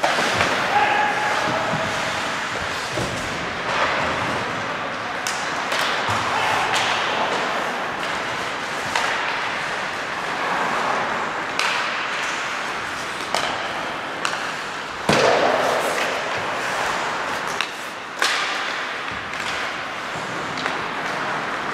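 Ice hockey play in an ice rink: sharp clacks and thuds of sticks, puck and boards at irregular moments over a steady scrape and hiss of skates, with one louder hit about 15 seconds in.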